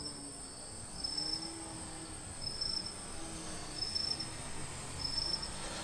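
Insects calling outdoors: a steady high-pitched drone, with a short, slightly lower chirp repeating about every second and a half.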